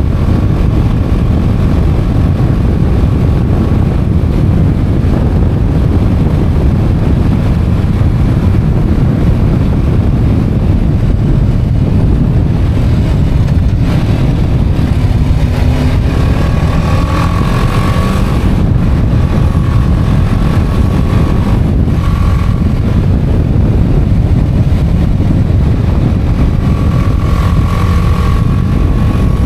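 BMW motorcycle ridden at steady road speed: a constant loud rush of wind over the microphone mixed with the engine's low drone. Faint rising tones come and go in the second half.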